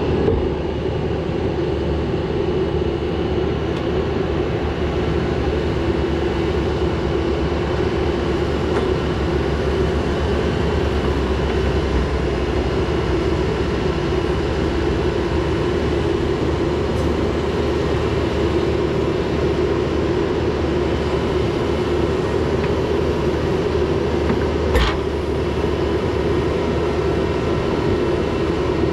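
Backhoe loader's diesel engine running steadily at a constant speed, with a single sharp click about 25 seconds in.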